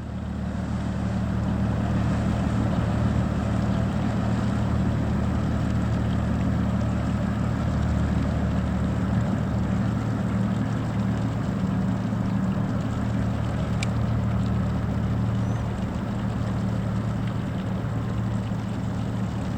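A ship's engine running steadily as the vessel moves off from the pier: a deep, even hum with a wash of noise over it.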